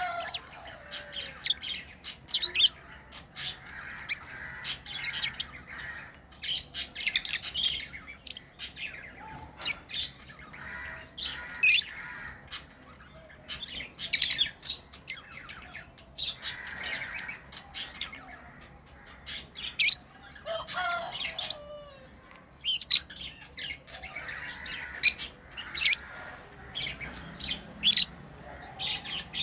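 Pet lovebirds chirping and squawking: a busy stream of short, sharp, high-pitched calls, several a second at times, with brief pauses between bouts.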